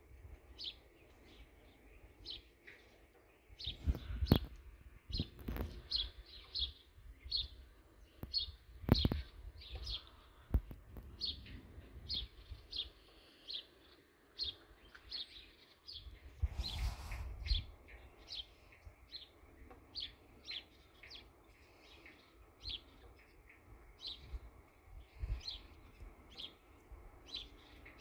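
A bird chirping over and over, short high chirps at about two a second, with a few sharp knocks and some low rumbling; the knocks are the loudest sounds.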